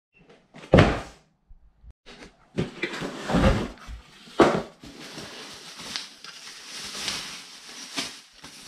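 A cardboard box set down on a wooden table with a sharp knock, then handling thuds as the box is opened, followed by bubble wrap crinkling and rustling as it is pulled off the contents.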